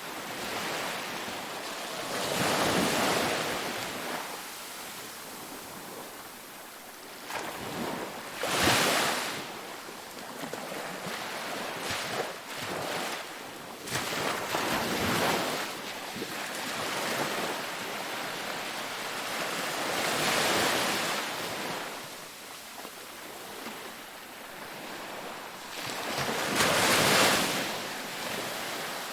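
Sea waves breaking in surf: a steady wash of water, swelling into a louder crash about every six seconds, five times.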